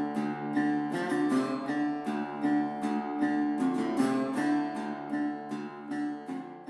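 Background music: a strummed acoustic guitar playing a steady, even strumming rhythm.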